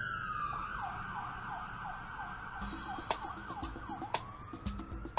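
Emergency vehicle siren: a slow wail that switches to a fast yelp about half a second in, then swings back into a slow rising wail near the end. Percussive music with wood-block clicks comes in about halfway through.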